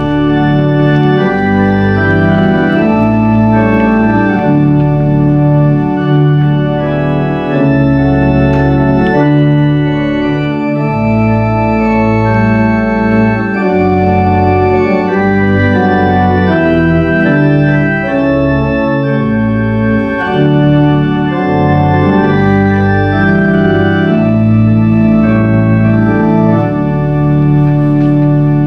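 Organ playing a postlude after the benediction: full, sustained chords in several parts over a moving bass line.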